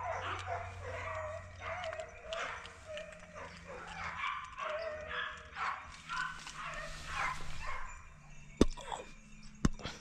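A dog giving many short, repeated calls, with two sharp clicks about a second apart near the end.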